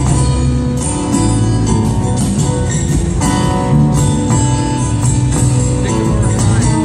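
Live band music: acoustic guitar, upright bass and drums playing a song, heard from the audience in a concert hall.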